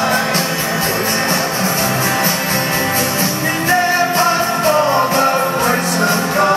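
Live rock band playing through a stadium PA with a man singing lead over a steady drum beat, the sung melody clearest in the second half.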